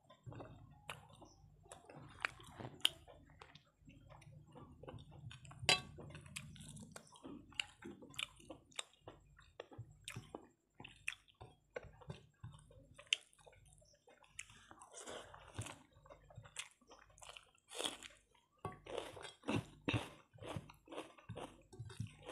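Chewing a mouthful of rice and curry with wet mouth smacks and many small irregular clicks, along with soft squishing as rice is mixed by hand on the plate.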